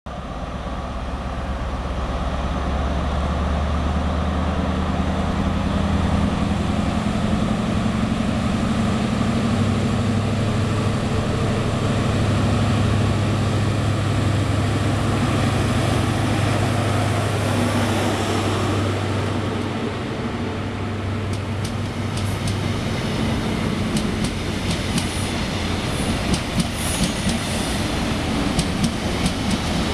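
Class 43 HST diesel power car pulling away and accelerating, its engine note climbing slightly as it approaches and passes close by. In the second half the engine recedes and the wheels click rapidly over the rail joints as the coaches go past.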